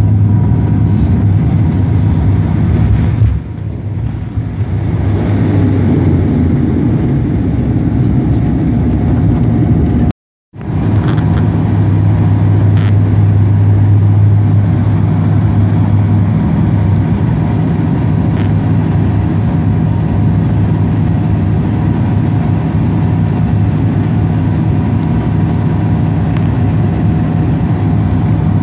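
Cabin noise of a twin-turboprop airliner at takeoff and climb power, by the landing gear a Dash 8 Q400: a loud, steady drone of engines and propellers with a deep hum and fainter higher tones. The sound dips briefly about three seconds in and cuts out completely for a moment about ten seconds in, then carries on as before.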